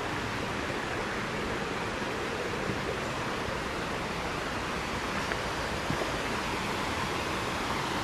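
Steady rush of flowing water from a rocky stream and waterfall, an even, unbroken noise.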